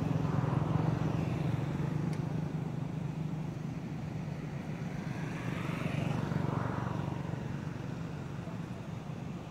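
Motor vehicle traffic: a steady low engine hum, with a vehicle passing by near the start and another swelling and fading about six seconds in.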